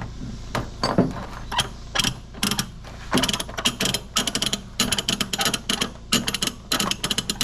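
A ratchet tightener being cranked to tension a load, stroke after stroke, each stroke a run of quick pawl clicks, about one stroke a second and busier in the second half.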